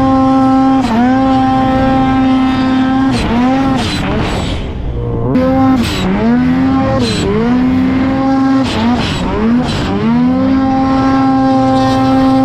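Ski-Doo 850 Turbo snowmobile's two-stroke engine running at high revs, held steady. In the middle the revs dip and climb back several times in quick succession, then hold high again toward the end.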